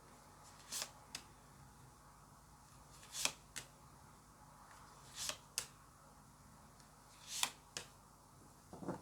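Tarot cards being drawn and laid down one at a time: four times, each a short swish followed by a light tap, about two seconds apart.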